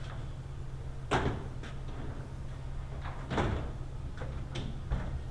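A handful of sharp clunks and clicks over a steady low hum. The loudest come about a second in and at about three and a half seconds.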